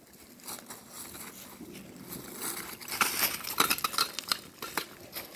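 Footsteps crunching through dry fallen leaves, an irregular run of crackles that grows louder about halfway through.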